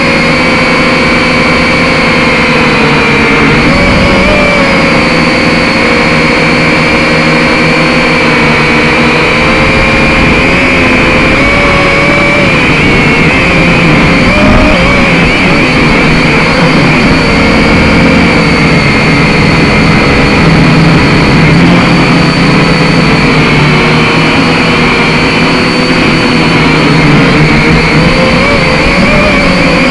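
Quadcopter drone's motors and propellers whining steadily and loudly, their pitch wavering slightly up and down as the motors adjust speed in flight.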